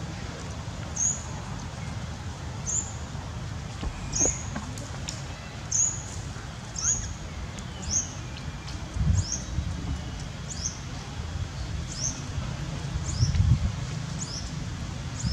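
Baby long-tailed macaque crying: a short, high, falling squeak repeated about once a second, coming a little faster towards the end. A low rumble runs underneath and swells twice.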